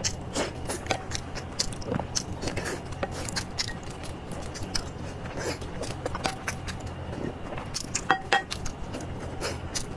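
Close-miked eating sounds: wet chewing, lip smacks and mouth clicks, with gloved hands tearing soft boiled egg white in chili oil. Many small irregular clicks over a low steady hum, with two sharper clicks a little after eight seconds in.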